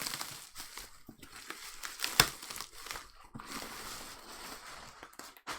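Shipping packaging being handled and pulled open: crinkling and rustling with scattered small clicks, and one sharp snap about two seconds in.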